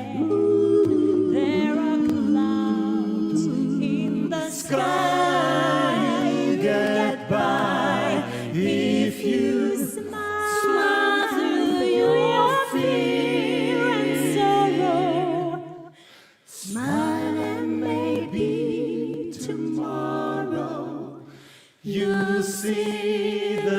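A cappella vocal quartet singing in close harmony, sustained chords over a low bass line. The voices break off briefly twice, about 16 and 22 seconds in, between phrases.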